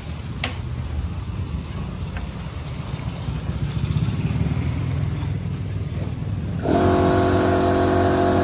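Steady low rumble like a motor vehicle running nearby, slowly growing a little louder. About two-thirds of the way through it changes suddenly: a set of steady held tones and louder hiss start at once, as at a cut.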